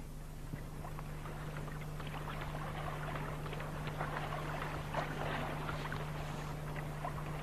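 Faint water sounds of a lesser flamingo swimming and sweeping its bill through the lake surface: small soft splashes over a steady low hum.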